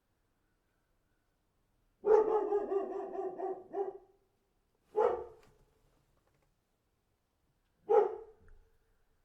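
Large dog barking: a run of several barks about two seconds in, then two single barks about three seconds apart.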